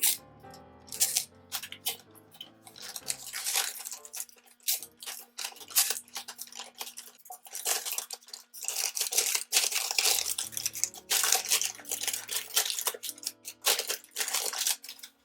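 Masking tape and paper being torn, crinkled and pressed down, making irregular sharp crackling and tearing sounds over quiet background music with held keyboard-like notes.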